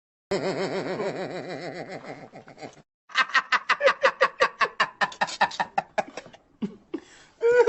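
Laughter sound effects: a wavering, drawn-out laugh, then about three seconds in a fast run of short 'ha-ha-ha' bursts, with another laugh starting near the end.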